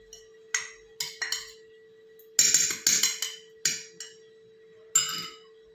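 A metal spoon clinks and taps against a glass tumbler as it presses down a layer of crushed biscuit. There are about eight sharp taps, each with a brief ring, and several come close together in the middle.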